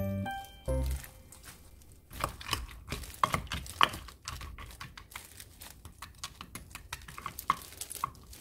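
A wooden spatula stirring soybeans soaking in kelp broth in a glass container: a run of irregular clicks and clacks as the beans knock against each other and the glass. Music plays briefly at the start.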